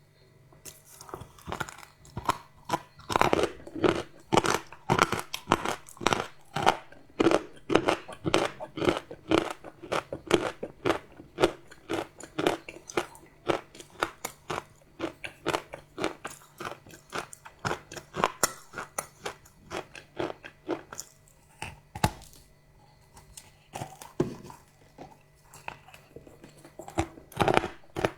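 Close-up chewing of crunchy chocolate: a fast, steady run of sharp crunches, about two or three a second. The crunches thin out to a few scattered ones past the middle, then come thick again near the end.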